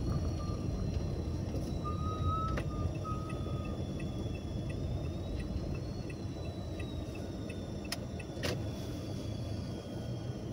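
Inside a moving car: steady low rumble of the engine and tyres while driving slowly. A faint high squeak comes about two seconds in, and two sharp clicks sound near the end.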